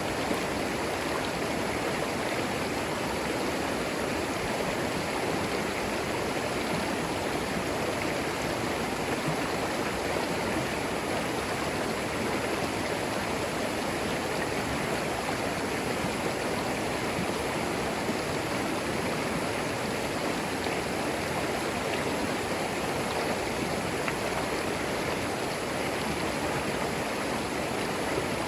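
A small forest creek flowing steadily over moss-covered stones, a constant even rush of water without any changes.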